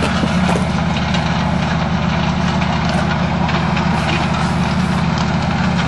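Heavy diesel engine of a slow-moving railway maintenance train with a crane, running steadily with a low rumble.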